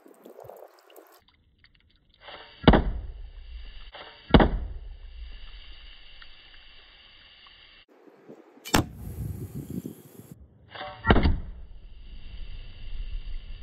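Arrows shot from a homemade slingshot hitting a water-filled plastic bottle target, four sharp smacks in all: two about two seconds apart, then two more later, over a faint hiss.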